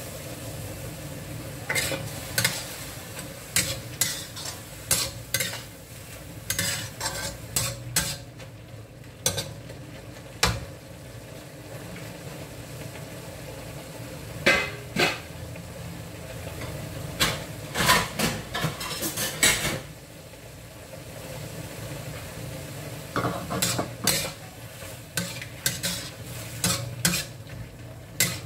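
Beef and wood ear mushrooms sizzling in a stainless steel wok, with a metal ladle clanking and scraping against the wok in spells of stirring, quieter stretches of plain sizzling between.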